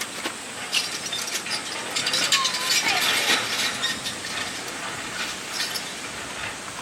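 Camping gear being handled while packing up: scattered clicks and clinks of hard items, busiest in a rattling stretch a couple of seconds in.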